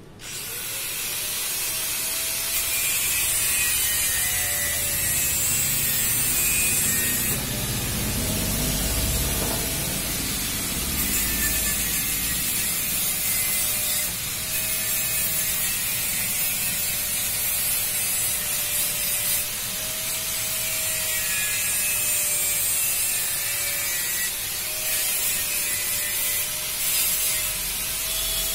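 Vertical cylinder boring machine running: a steady, slightly wavering whine from its motor and spindle, with a metallic hiss over it. It starts suddenly at the beginning.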